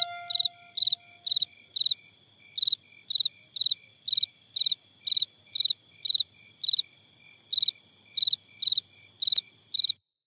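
Cricket chirping in an even rhythm, about two short, high chirps a second, with a couple of brief pauses, stopping just before the end.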